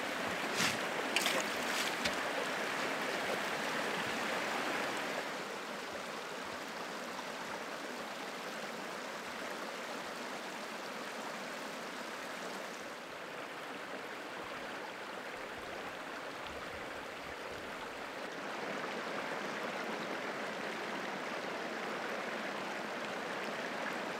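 Mountain creek water rushing and trickling over logs and small cascades, a steady even sound. A few brief sharp sounds stand out in the first couple of seconds, and the water gets a little quieter about five seconds in.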